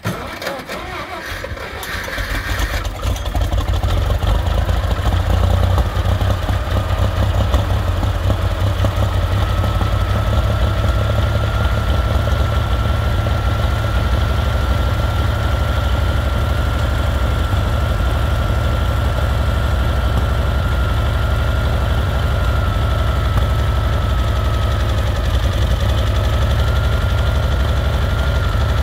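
1964 Farmall 706's six-cylinder engine starting up, growing louder over the first few seconds, then idling steadily.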